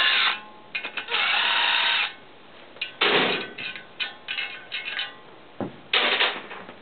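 Cordless drill spinning out bolts on a Honda Accord steering knuckle in two short runs, the second about a second long, followed by scattered metallic clicks and clatter as the loosened parts are handled.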